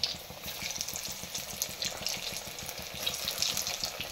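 Samosas deep-frying in hot ghee: a steady sizzle of bubbling fat with frequent small crackles and spits.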